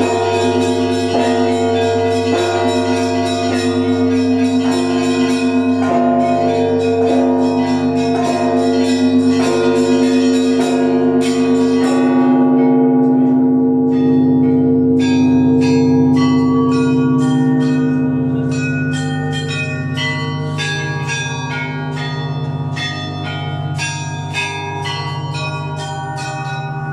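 Russian Orthodox church bells of the Trinity-Sergius Lavra belfry ringing: deep bells hum steadily beneath repeated strikes of smaller bells, about two a second at first. After a short thinning about halfway through, the small bells are struck faster and more densely.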